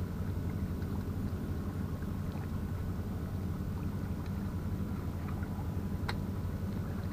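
Steady low drone of a boat engine running, with a few faint ticks and one sharp click about six seconds in.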